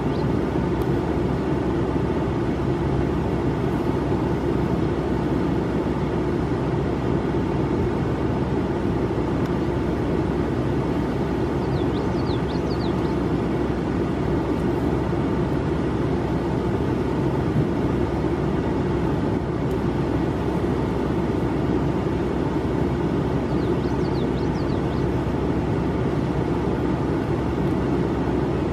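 Steady low rumble of a vehicle engine running without change, with a faint even hum. A small bird gives a short high chirping call twice, about twelve seconds apart.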